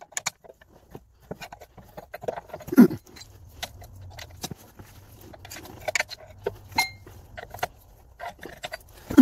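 Irregular metallic clicks, taps and clinks of hand tools against the rear suspension's integral link and ball joint as the link is levered into place, with a louder knock about three seconds in and a short ring of metal near seven seconds.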